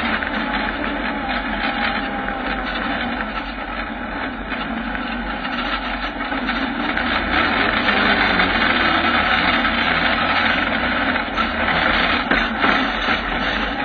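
Kawasaki ZX-9R inline-four motorcycle engine in a 4x4 off-road buggy running as the buggy crawls over rough rock, heard from on board, getting louder about halfway through.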